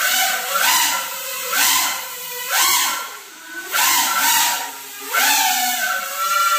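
Small FPV quadcopter's brushless motors and propellers revving in short throttle bursts about once a second, each a rising whine that falls away. Near the end the whine holds steady as the quad lifts into a hover.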